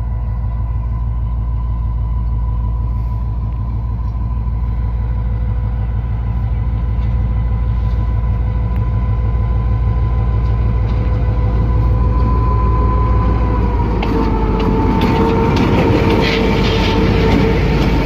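GMCU-15 diesel-electric locomotive running slowly toward and past, its engine giving a steady low drone with a constant whine. About fourteen seconds in it grows louder and the whine dips slightly in pitch as it draws alongside, with clicking and rattling from the wheels on the track.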